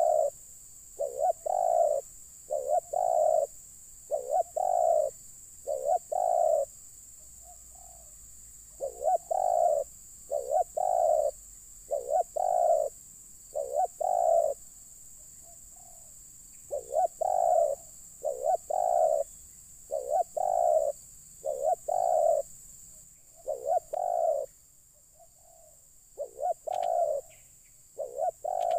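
Spotted dove cooing: phrases of several low coo notes, repeated again and again with short pauses between the phrases.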